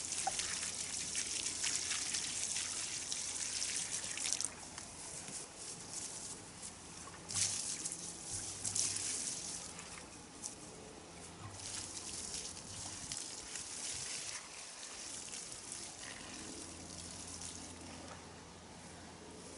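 Water trickling and splashing out of a large plastic water bottle onto the soil at the roots of freshly planted shrubs, during hand watering. It pours in spells, the longest over the first four seconds or so.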